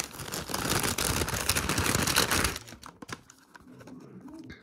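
Paper gift bag and tissue rustling and crinkling as hands open it and pull out the item, loud and crackly for about two and a half seconds. Then it is quieter, with a few light clicks as the blister-packed toy card is handled.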